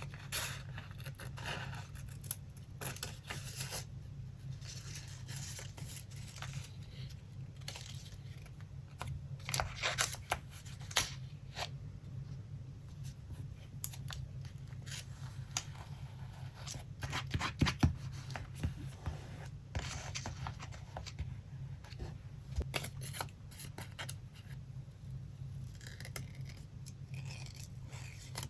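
Paper being handled and cut for a collage: irregular snips, rustles and light taps of paper, busiest about a third of the way in and again a little past the middle. A low steady hum runs underneath.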